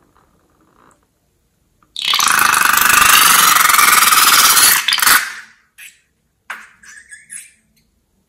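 Rubber balloon emptying through its cut neck. About two seconds in, liquid and air spurt out and the neck gives a loud, rough buzz for about three seconds, followed by a few short sputters.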